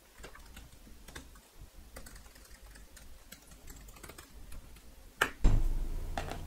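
Typing on a laptop keyboard: irregular, light key clicks. About five seconds in, a sharper click and a deep thump.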